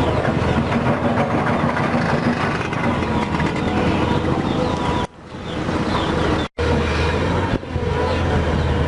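Volvo excavator's diesel engine running steadily at work. The sound drops away sharply about five seconds in, builds back, then cuts out for an instant.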